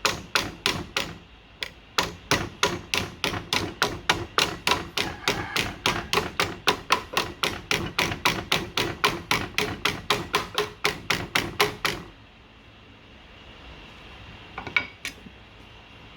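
Hammer blows on a sheet-metal patch piece clamped in a vise over a hammerform, bending the metal into shape: steady strikes about three a second that stop about twelve seconds in, followed by a couple of light taps near the end.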